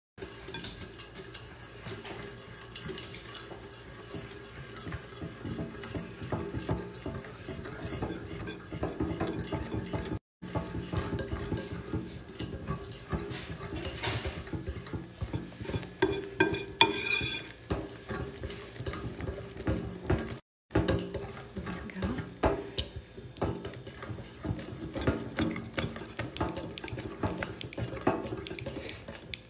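Metal balloon whisk stirring flour into batter in a glass mixing bowl, its wires clicking and scraping against the glass without pause. The sound cuts out briefly twice.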